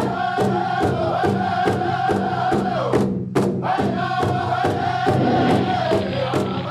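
Intro music: a steady drum beat, about two strokes a second, under voices singing a chant-like melody, with a brief break about three seconds in.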